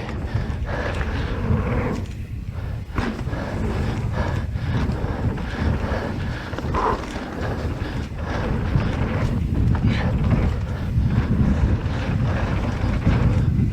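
Wind buffeting a GoPro microphone on a fast mountain bike descent, with tyres running over dirt and frequent clattering knocks from the bike over bumps.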